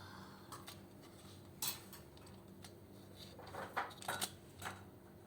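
A handful of sharp clicks and small metallic handling noises, one a little under two seconds in and a cluster around four seconds, over a steady low hum.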